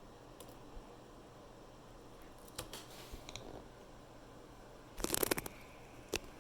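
Small sharp clicks and light scraping of a lock pick working the pins of a pin tumbler challenge lock under tension, with a quick burst of rattling clicks about five seconds in and a single click near the end.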